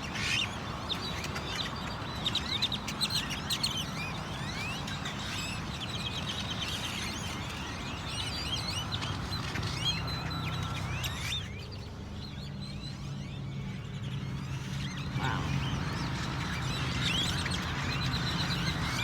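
Many birds chirping and calling at once, a dense overlapping chatter of short calls, over a steady low hum. The calling thins out for a few seconds after the middle, then picks up again.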